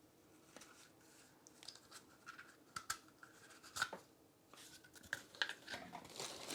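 Faint rustling and scattered sharp clicks of plastic vacuum-cleaner attachments and their wrapping being handled.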